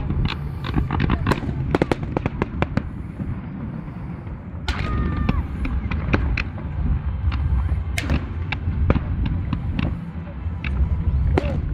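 Fireworks display: a rapid string of sharp crackling reports over a continuous low rumble of booming shells. The cracks come thickest in the first few seconds, then thin out to scattered loud bangs.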